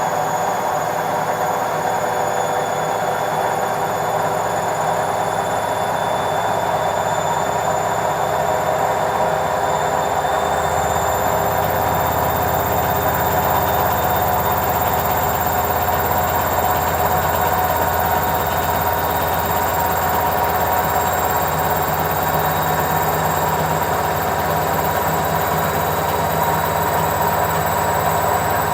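Washing machine on its spin cycle: a steady mechanical hum with a whine on top, the low rumble growing stronger about ten seconds in.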